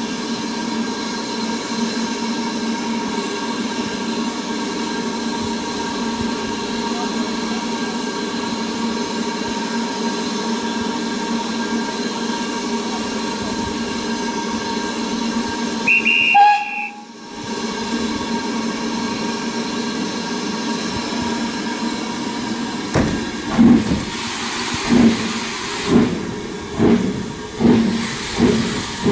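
BR Standard Class 4MT steam locomotive standing with a steady hiss and hum. A brief whistle sounds about halfway through. Near the end the engine starts away with heavy exhaust chuffs, slow at first and quickening.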